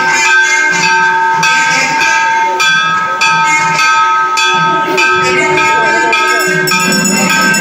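Festival music: a steady, unwavering high drone held throughout, with rhythmic metallic hits about every two-thirds of a second.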